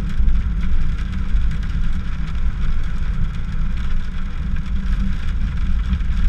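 Steady low rumble of a car driving on a wet highway, heard from inside the cabin, with a lighter hiss of rain and spray over it.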